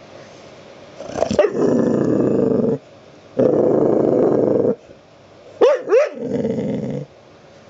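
Pit bull puppy growling in three long rumbles, the last one opening with two short sharp barks. This is the growl she gives to demand petting.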